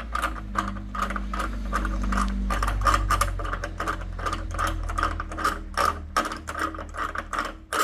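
Ratchet wrench clicking steadily, about four clicks a second, as the bolt of a water-heater earthquake strap is tightened to take up slack in the strap.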